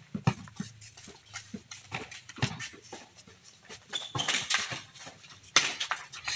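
Basketball bouncing and players' feet hitting a concrete court, a string of short knocks about twice a second, with louder, noisier bursts about four seconds in and again near the end.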